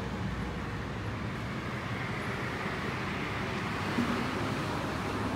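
Road traffic noise: a steady wash of passing vehicles that swells in the middle, with a brief knock about four seconds in.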